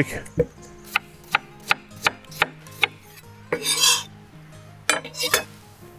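Kitchen knife slicing raw potatoes on a chopping board: a run of sharp clicks as the blade cuts through and strikes the board, about two to three a second, with a short scraping rub a little past halfway.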